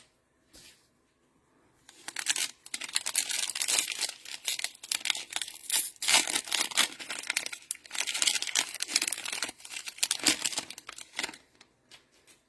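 Cellophane wrapper of a Panini Mosaic NFL cello pack being torn open and crinkled, a dense crackling that starts about two seconds in and stops shortly before the end.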